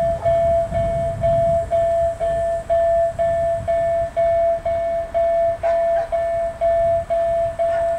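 Railroad crossing warning bell ringing steadily at about two strokes a second, each stroke a clear high tone, over a low rumble. A couple of faint clanks come near the end.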